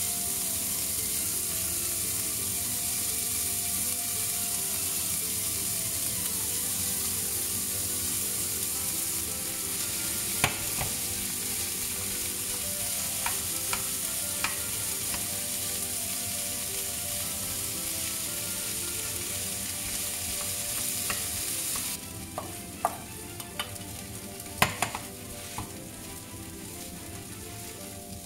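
Sausage, vegetables and rice sizzling in a hot frying pan as they are stir-fried, with sharp clicks of a spatula against the pan now and then. The sizzle quietens suddenly about three-quarters of the way through.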